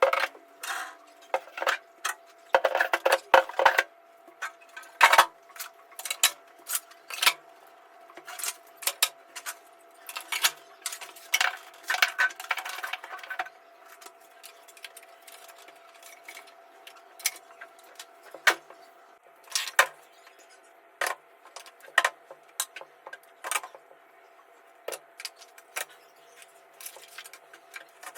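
Irregular clinks, clatters and knocks of kitchenware being handled, thickest in the first half and sparser later, over a faint steady hum.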